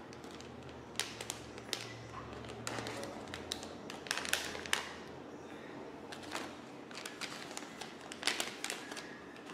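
Irregular light clicks and taps of small items being handled and set down, with a faint low hum underneath.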